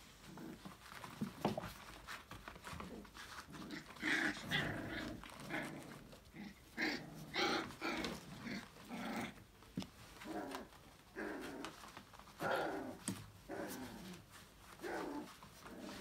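Five-week-old Australian labradoodle puppies growling and vocalizing in play, a string of short bursts that starts about four seconds in.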